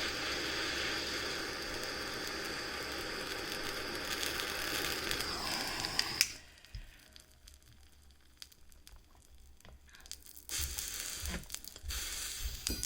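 Soldering torch flame running with a steady hiss, shut off about six seconds in with a short falling tone and a click. After that come faint clicks and taps of small parts being handled.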